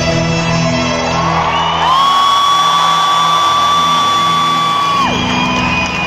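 Concert crowd whooping over the band's closing bars. One long high whoop rises and holds steady for about three seconds, then drops off sharply, with other shrill cries overlapping it.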